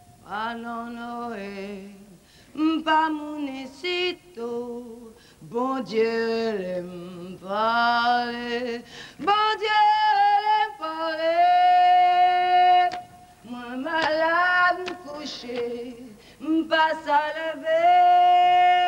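A woman singing solo in phrases, holding some notes long, with no instruments heard.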